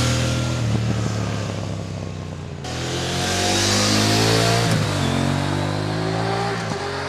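KTM 890 Adventure parallel-twin engine through a Black Widow hexagonal 300 mm stainless slip-on exhaust with the stock catalytic converter, pulling hard under throttle. The engine note climbs in pitch, drops at a gear change about five seconds in, then climbs again, over a rushing wind and knobby-tyre road noise.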